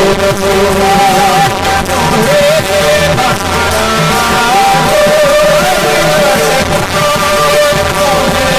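Kirtan singing of a Marathi abhang verse, a wavering sung melody over instrumental accompaniment and percussion strokes.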